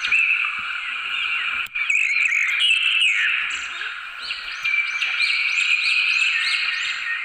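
A dense, continuous chorus of calling animals, many calls overlapping and sweeping up and down in pitch.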